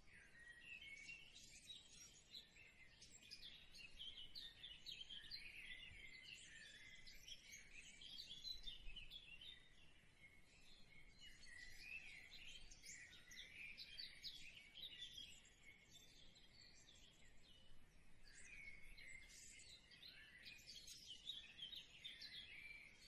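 Faint birdsong: many small birds chirping in a steady, continuous chorus.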